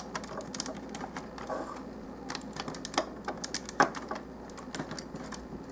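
Irregular small plastic clicks and ticks from a Transformers Long Haul action figure being handled as its dump bed is moved and the piston parts underneath it shift.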